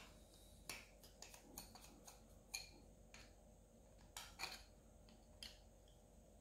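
Faint, irregular clicks and ticks of a small screwdriver working out the back-plate screws of a Novarossi Bonito nitro RC engine, the driver tip catching in the screw heads.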